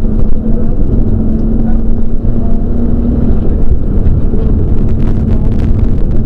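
In-cabin sound of a Nissan Skyline GTS-t's RB20 turbocharged straight-six under load at fairly steady revs. Its note rises slightly and then holds, over heavy road and drivetrain rumble.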